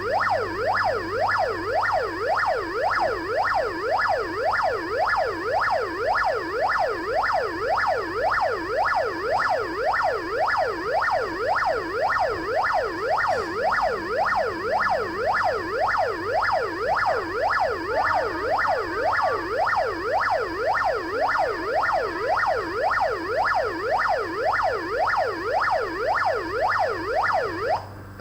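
Arduino-generated police siren tone, a single electronic pitch sweeping up and down about twice a second in a fast, even wail. It starts abruptly and cuts off abruptly near the end.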